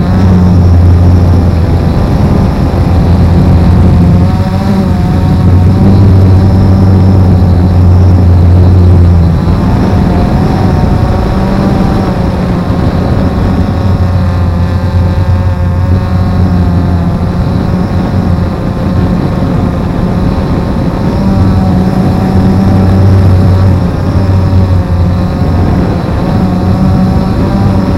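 Camera drone's electric motors and propellers humming, heard from the aircraft's own camera. The pitch wavers up and down as the motor speeds change.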